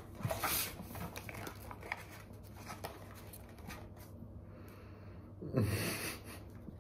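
A paper packet rustles and crinkles as it is opened, with small clicks and lighter handling as dried cannabis buds are taken out. About five and a half seconds in comes a short, louder nasal chuckle.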